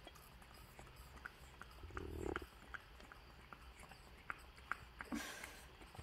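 Faint, irregular little clicks and sips from two young monkeys sucking smoothie through plastic straws, with a brief muffled sound about two seconds in.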